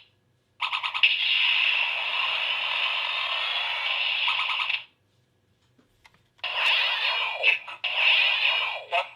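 Kamen Rider Blade Blay Buckle toy transformation belt playing electronic sound effects through its small speaker. A steady effect lasts about four seconds, then stops, and after a short pause a run of warbling, sweeping effects begins.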